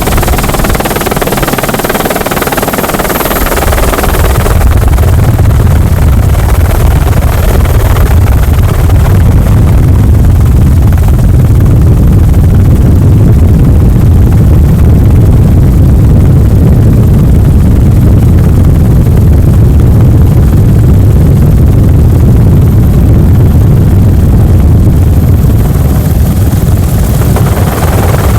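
Helicopter rotor and engine noise heard from on board: a loud, steady, fast low thudding of the blades. A hissing rush rides over it in the first few seconds and again near the end.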